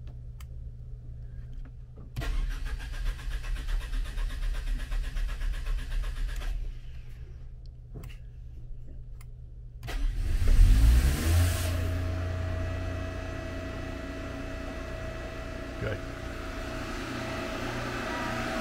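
Westerbeke 7.2 kW carbureted gasoline marine generator being started. A few seconds of rapid mechanical rattle come first. About ten seconds in the engine catches, rises quickly in pitch and settles into a steady, fast run at its fixed 3,600 rpm.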